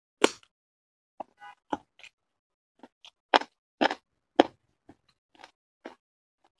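Close-miked eating sounds of a man biting and chewing chicken with his mouth open: a string of separate short wet clicks, smacks and crunches at an uneven pace. The loudest come just after the start and in a cluster around the middle.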